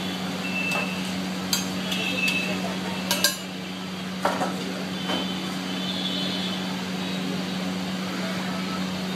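Metal spatula clinking and scraping against a large steel frying pan as squid is stir-fried, several sharp strikes in the first half, over a steady low hum.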